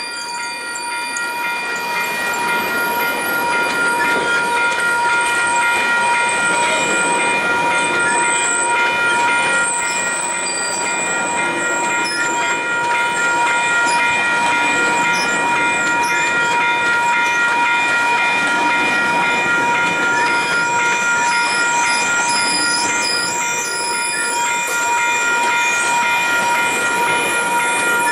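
GO Transit train of bilevel coaches rolling past, wheels running over the rails with a steady, high-pitched squeal held throughout.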